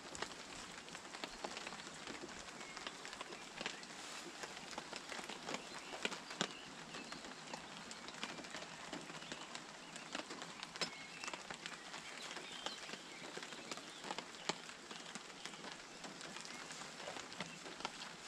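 Light rain and drips pattering on a tarp overhead: scattered sharp drop ticks over a steady soft hiss.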